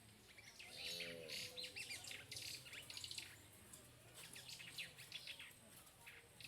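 Small birds chirping and twittering in quick, high calls, busiest in the first half, with one short lower call about a second in.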